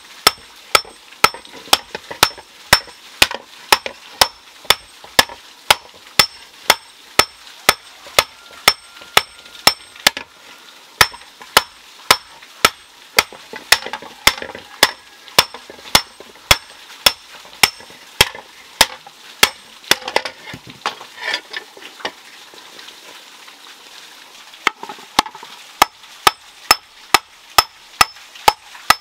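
Hand hammer beating red-hot iron on a stone anvil while forging an iron pan, about two blows a second, each with a short metallic ring. The blows thin out for a few seconds around two-thirds of the way in, then resume at the same pace.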